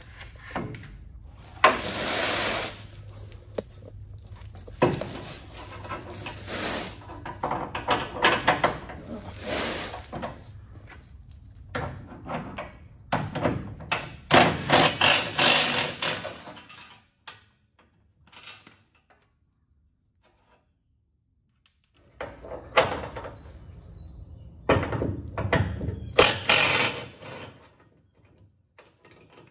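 Garage work on a car subframe: repeated irregular knocks, thunks and clattering as parts and tools are handled. It stops for a few seconds of near silence in the middle, then starts again.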